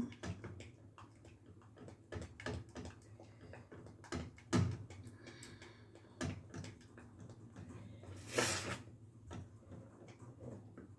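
Scattered light knocks and clicks of a spoon against a saucepan as a thickening pastry cream is stirred, with one short rush of noise about eight seconds in.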